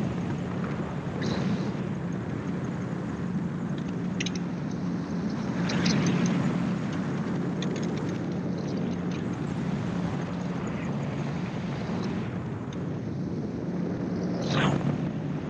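Gyroplane's engine and propeller running steadily in cruise, heard from the cockpit with a steady rush of air noise. A few short knocks or gusts break through, the strongest near the end.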